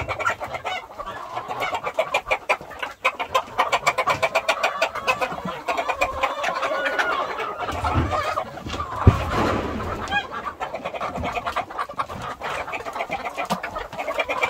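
A flock of chickens clucking continuously in short, rapid calls, with a single sharp knock about nine seconds in.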